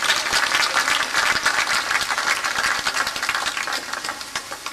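Audience applauding: dense clapping that thins out and dies away near the end.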